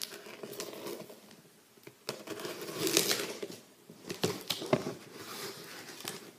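Large cardboard shipping box being cut and pulled open by hand: irregular scraping, ripping and crinkling of cardboard and packing, loudest about halfway through, with a few sharp clicks and snaps.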